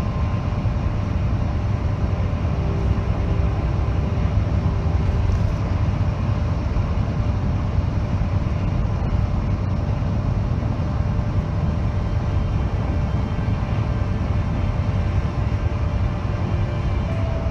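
Steady low rumble of a moving vehicle heard from on board, even throughout.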